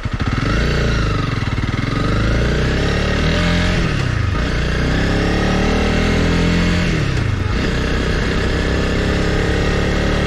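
Honda CRF300L Rally's single-cylinder engine pulling away under throttle. Its pitch climbs and drops back about three times as the bike accelerates through the gears.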